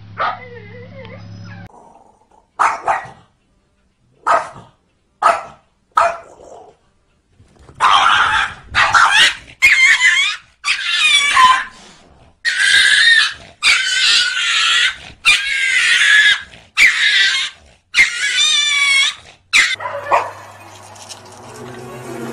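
Dog and cat fighting: a handful of short, separate barks, then a long run of loud growling and yowling cries, each about a second long with brief gaps between them.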